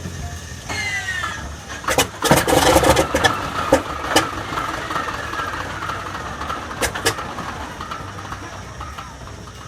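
An engine starting: a rising whine, then loud irregular bangs and clatter about two seconds in, then a steady tone that slowly falls in pitch and fades away.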